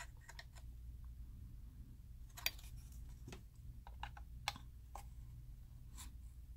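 Knife blade prying at the seam of a Porsche Design external hard drive enclosure, giving scattered sharp clicks and light scrapes as it catches on the case and its plastic locks, the loudest about two and a half seconds in. A low steady hum lies underneath.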